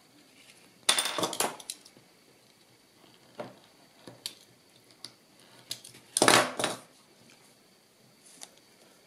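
Handling noise on a tabletop: hands moving paper strips, a plastic glue stick and a cutting mat, giving short clicks and clattering rustles in two louder clusters, about a second in and about six seconds in, with a few single clicks between.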